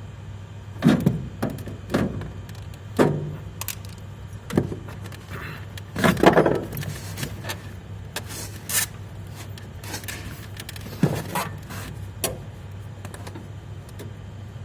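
Irregular metallic knocks, clinks and scraping as a sheet-metal guard plate is worked by hand into place inside an air conditioner's indoor unit, the loudest knocks about a second, two, three, six and eleven seconds in, over a low steady hum.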